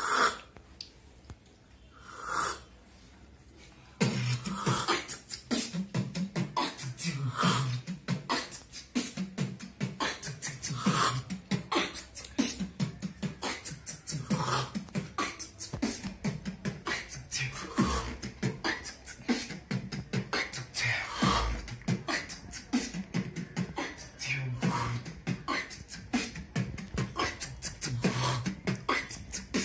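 Beatboxing: a trap-style beat of mouth-made kicks, snares and quick hi-hat clicks. It starts about four seconds in, after two short sounds, and then keeps a steady, dense rhythm.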